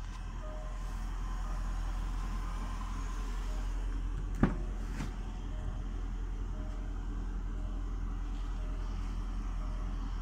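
A soft electronic beep repeating about once a second over a steady low hum, with one sharp knock about four seconds in.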